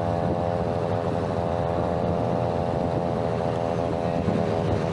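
Huasheng 63cc (71cc) two-stroke engine of a Chinaped X5 stand-up scooter running under way at a fairly steady speed, its pitch wavering slightly.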